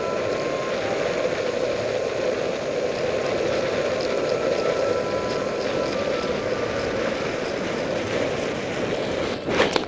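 Longboard wheels rolling fast on asphalt downhill: a steady roar of wheel and wind noise. Near the end come a few sharp knocks, the start of a bail.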